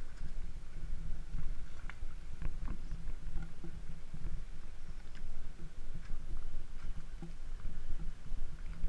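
Low, uneven rumble with scattered light clicks and knocks: wind and handling noise on a body-worn camera's microphone.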